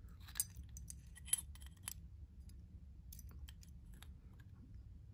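Light metallic clicks and scraping of a brass half-inch plug follower being pushed through a Yale large format interchangeable core, metal sliding against metal as the plug is driven out. A few sharper clicks fall in the first two seconds, with fainter ticks after.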